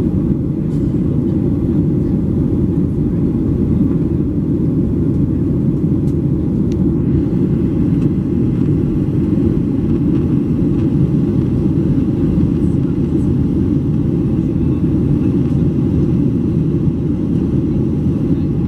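Steady cabin noise inside a Boeing 737-800 in flight: a dense, even low rumble of its CFM56-7B jet engines and the air rushing past the fuselage.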